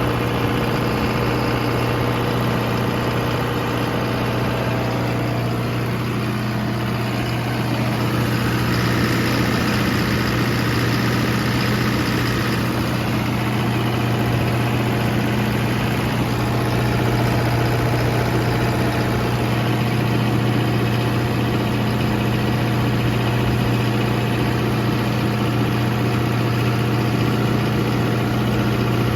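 John Deere diesel engine of a 45 kW generator trailer running steadily at a constant speed. Its tone shifts slightly for a few seconds near the middle.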